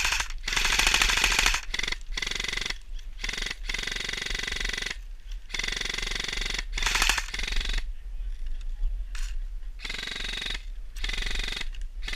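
Airsoft electric guns firing on full auto: a rapid mechanical rattle in repeated bursts of about a second, with short breaks between them.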